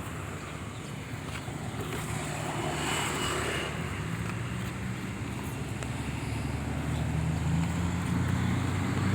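A vehicle engine running steadily, its low hum rising a little in pitch and level a few seconds in and again near the end, with wind noise.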